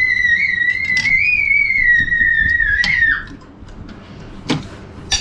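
A high, steady whistle-like tone, wavering slightly in pitch, that holds for about three seconds and then cuts off. Two light clinks follow near the end.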